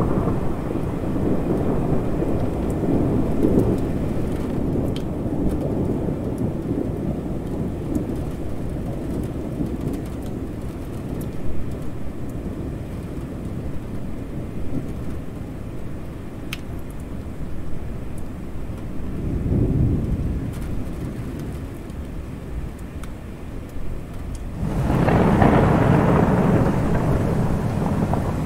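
Thunderstorm: steady rain with rolling thunder. A rumble fades over the first few seconds, another swells briefly about two-thirds of the way through, and a louder roll of thunder comes in near the end.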